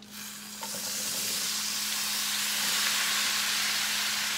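Wet sliced squash, zucchini and onions tipped into a skillet of hot bacon grease and butter, setting off a loud sizzle. The sizzle starts suddenly, swells over the first second and then holds steady.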